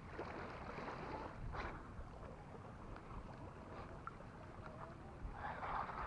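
Faint lapping of small waves at the water's edge, with some wind noise on the microphone, growing louder near the end.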